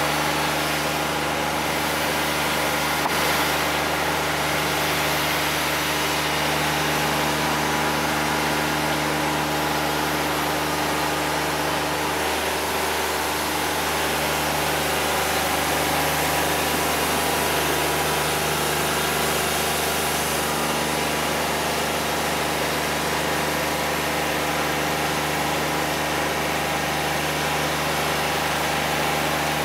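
Wood-Mizer LT50 Wide portable sawmill's engine running at a steady speed, with no change in its note.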